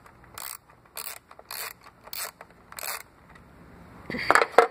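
Socket ratchet clicking in short runs, about six strokes roughly half a second apart, as it backs off the 10 mm nut on the fuse box's power terminal. Near the end come two louder sharp clacks.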